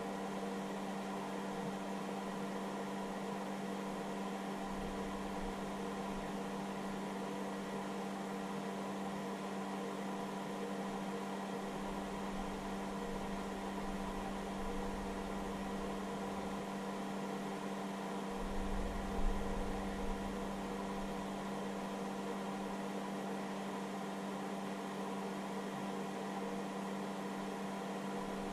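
Steady electrical hum and whine from a hobby battery charger's cooling fan and electronics, running while it discharges an 18 V lithium battery at about 5 amps. A brief low rumble comes about two-thirds of the way through.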